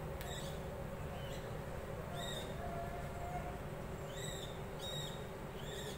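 Birds chirping repeatedly: short high calls that rise and then hold, roughly one a second, over a steady low background hum.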